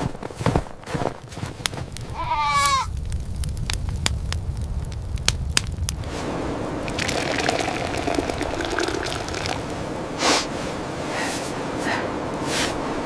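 Crunching steps and clicks, then a single wavering animal bleat about two seconds in. From about six seconds a steady rushing noise with scattered crackles takes over.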